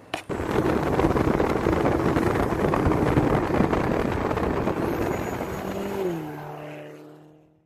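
Hyundai Genesis Coupe driving past, its engine and exhaust loud as it goes by. Near the end the engine note drops in pitch and fades away.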